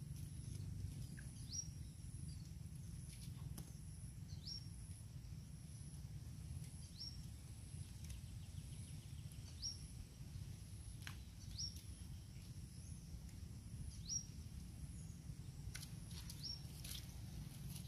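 A bird repeating a short, high, upward-sweeping chirp about seven times, every two to three seconds, over a steady low outdoor rumble and a faint steady high tone.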